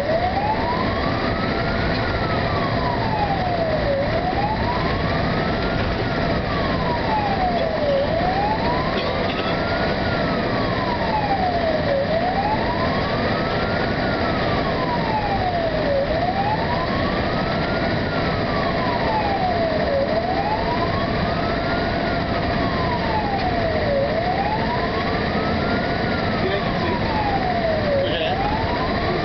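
Fire engine's siren wailing, heard from inside the cab, rising and falling in a slow cycle of about four seconds, over the truck's steady engine and road noise.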